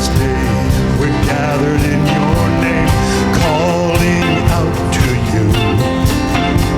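Live worship band playing with drums keeping a steady beat under guitar, with a wavering melodic line through the middle.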